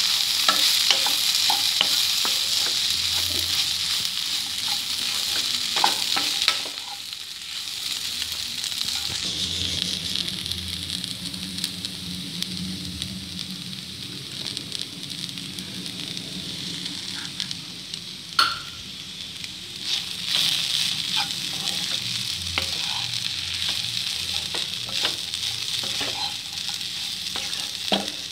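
Chopped okra sizzling as it fries in a pan and is stirred with a wooden spatula, with scattered scrapes and taps of the spatula. The sizzle is loudest for the first six seconds or so, then drops to a softer, steady sizzle.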